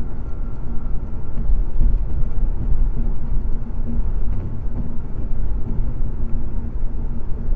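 Steady road and engine rumble of a car cruising at highway speed, heard from inside the cabin.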